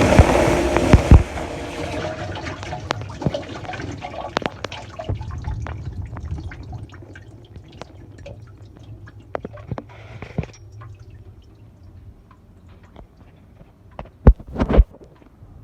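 Water in a dishwasher rushing and dying away within the first two seconds into scattered dripping and trickling that thins out. Two sharp knocks near the end.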